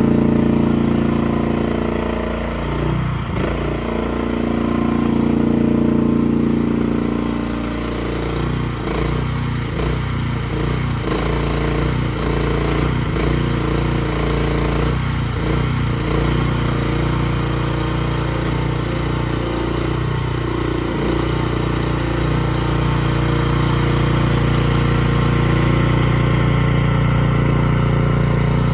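Small gasoline engine of a Miva VA16S mini hydraulic excavator running. Its note swells and dips in the first several seconds, a run of short knocks and load changes follows, and then it runs steadily.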